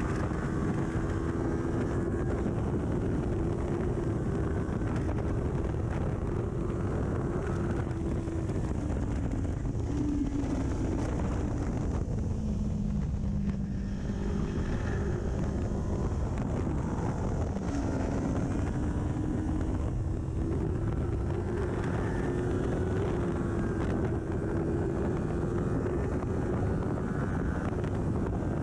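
Kawasaki Ninja 400 parallel-twin engine with an aftermarket full exhaust, running steadily under heavy wind noise on the microphone. Its pitch drops lower for a few seconds about halfway through, then climbs back up.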